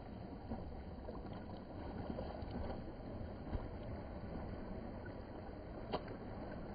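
Shallow seawater lapping and sloshing right at the microphone, over a low rumble, with a few faint splashes and one sharper tap about six seconds in.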